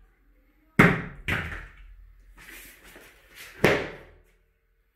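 Three heavy thumps in a small room, about a second in, half a second later and near the end, each dying away with a short room echo.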